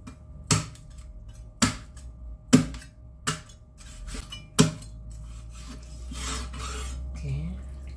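Cleaver chopping through a whole raw chicken on a bamboo cutting board: five sharp chops in the first five seconds, then a longer rasping stroke as the blade is worked through the carcass.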